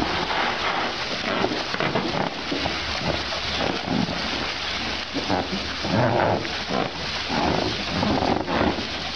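Water splashing and sloshing in an inflatable paddling pool as baby elephants roll about in it, with irregular louder splashes, over the steady hiss of a garden hose spraying.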